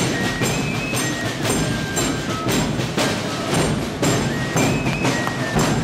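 Festive band music over large loudspeakers, with a steady percussive beat about two times a second and short held melody notes above it.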